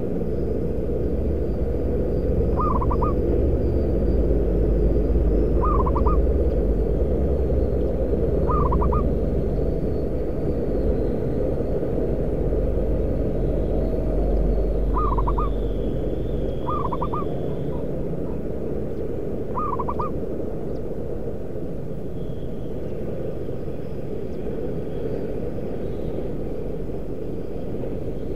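Zebra dove (perkutut) cooing: six short calls of quick staccato coos, a few seconds apart, with a longer pause in the middle. Under them runs a steady low rumble, heavier in the first half.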